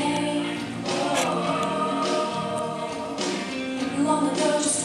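Voices singing a Christian song over musical accompaniment.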